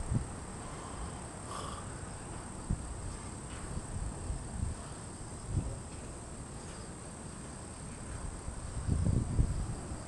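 Steady high-pitched insect trill, with low rumbling on the microphone that swells briefly near the end.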